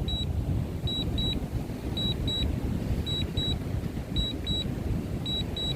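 DJI drone remote controller giving a warning alert: a repeating double beep, two short high beeps about once a second. Under it runs a steady low rumble of wind on the microphone.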